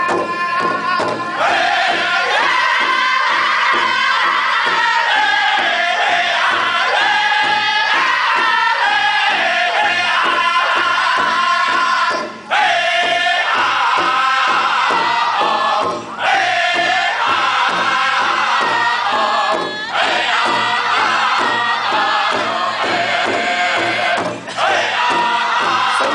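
Pow wow drum group: several men singing together in high, strong voices while striking one large powwow drum in a steady, even beat. The song breaks off briefly four times between phrases.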